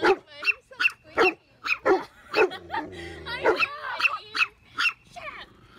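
Small dog yapping over and over, a dozen or so short high-pitched barks at about two to three a second.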